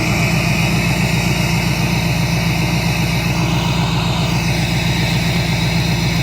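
LML Duramax 6.6-litre V8 turbodiesel idling steadily after a cold start, with an even, fast diesel clatter. The engine has a blown head gasket.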